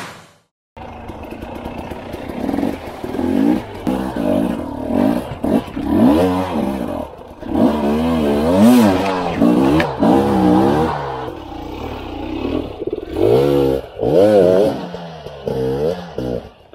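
Two-stroke enduro motorcycle engine revving in repeated surges, its pitch rising and falling every second or two as the bike picks its way up a rocky creek bed, with stones clattering under the tyres. It starts about a second in, after a moment of silence.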